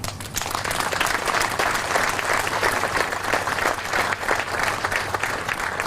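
Audience applauding: a dense patter of many hands clapping that starts right away and thins out near the end.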